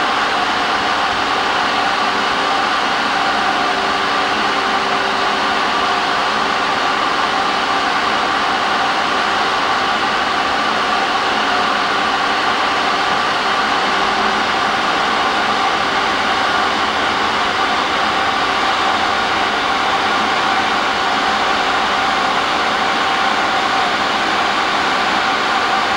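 A machine's fan running steadily: an even hiss with several held whining tones.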